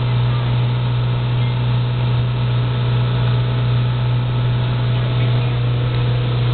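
Motorboat engine running at a steady speed, heard from on board: a constant low drone that holds even throughout.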